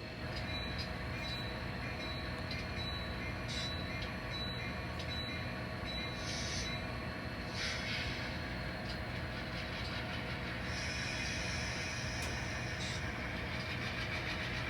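N scale model train running in a switching move: a steady hum with a high tone that repeats about every three-quarters of a second for the first six seconds, and several short hisses.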